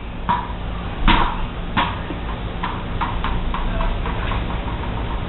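Blue bouncy rubber ball bouncing repeatedly off concrete steps and walls: a run of sharp, pinging hits at uneven intervals, the loudest about a second in.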